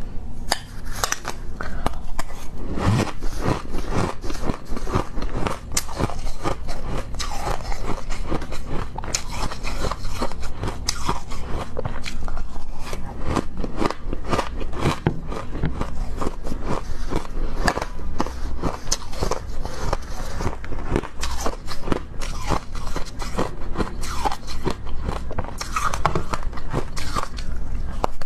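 Ice being bitten and crunched between the teeth: dense, irregular crunching and crackling that goes on throughout.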